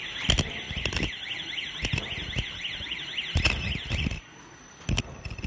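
Automatic non-woven bag making machine running with repeated sharp mechanical clacks from its strokes. A warbling electronic alarm tone sweeps quickly up and down over it and stops about four seconds in.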